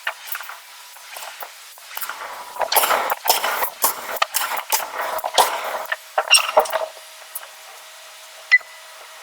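Irregular metal knocks and clinks from forging work on iron, coming thick and fast in the middle, then one sharp ringing clink near the end.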